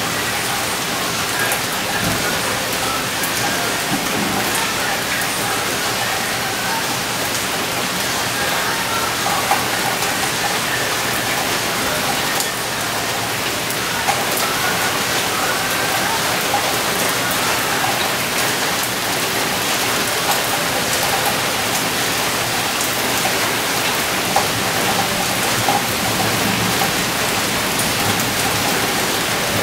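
Heavy rain falling steadily, with scattered sharper ticks of drops striking close by.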